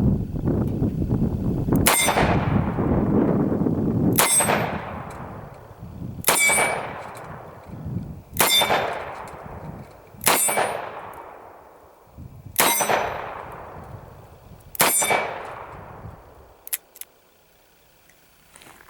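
Seven double-action shots from a Ruger GP100 revolver in .327 Federal Magnum, fired with 100-grain soft-point loads about two seconds apart. Each shot is followed by a fading metallic ring. A couple of faint clicks come near the end.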